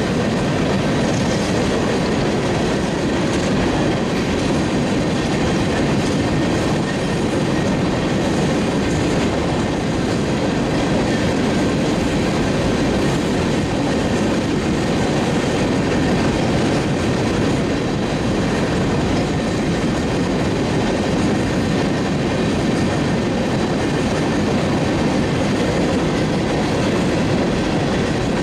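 Union Pacific freight train of coal gondola cars rolling past at a steady pace: the continuous rumble and clatter of steel wheels on the rails.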